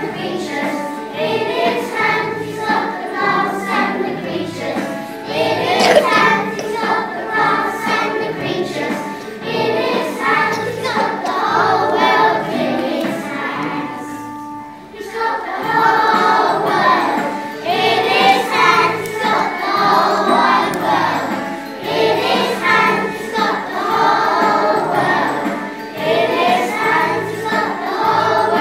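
A group of children singing together with instrumental accompaniment, with a brief break between lines about halfway through.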